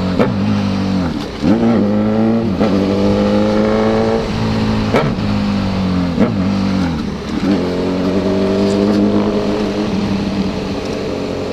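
Honda CB1000 four-cylinder engine with a 4-into-1 exhaust running steadily, its pitch dipping and rising several times as the throttle changes.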